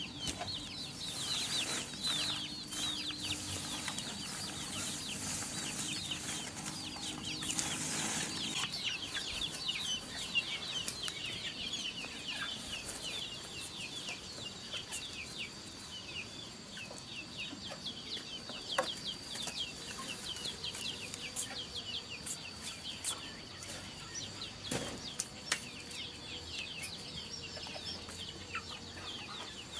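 A flock of free-range chickens calling continuously: many rapid, high, falling peeps and clucks overlapping.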